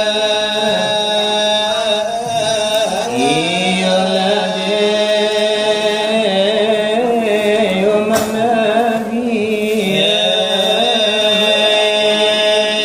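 Selawat dulang chanting: a voice holds long, wavering melismatic notes with slow slides in pitch, with no clear words. There is one sharp knock about eight seconds in.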